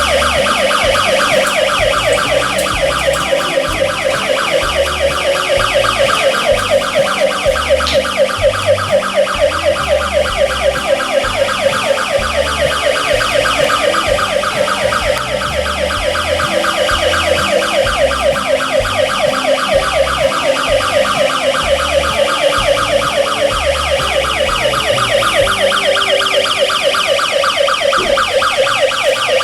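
Electronic police siren from a battery-powered kids' ride-on police motorcycle, a fast, even warble sounding without a break.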